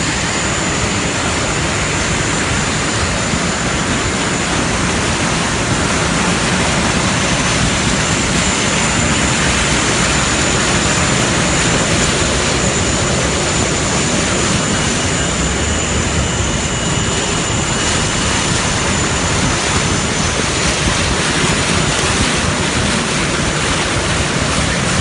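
Vehicle driving through deep floodwater: a steady, loud rush of water and engine noise, with a thin high whine running through it.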